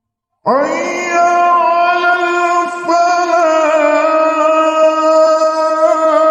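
A muezzin chanting the adhan in the melismatic Javanese langgam style: after a short silence, one long held note about half a second in, with small wavering turns in pitch and no break.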